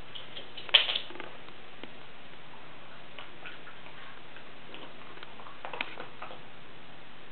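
Scattered, irregular light clicks and taps over a steady hiss, the loudest a sharp click about three-quarters of a second in and a few more just before six seconds.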